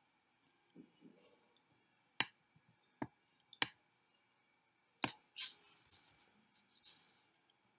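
Scattered sharp clicks of desk handling: four crisp clicks over the first five seconds, followed by a run of softer clicks and taps. A faint rustle comes about a second in.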